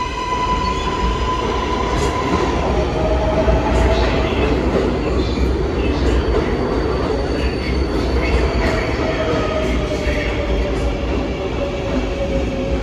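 New York City subway train running through the station: a heavy rumble with sharp clicks of wheels over rail joints. About two thirds of the way in, a drawn-out whine slides slowly down in pitch.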